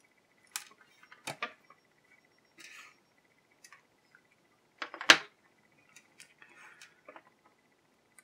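Scattered small clicks and taps of a plastic action figure and a hobby knife being handled while rubber bands are cut off the figure's arms, with one sharper click about five seconds in.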